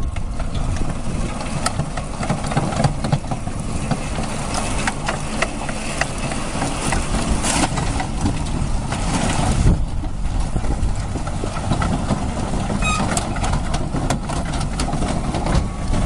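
Engine of a tracked amphibious all-terrain transporter running steadily, with scattered knocks, as the vehicle drives down a grassy bank into a lake and floats.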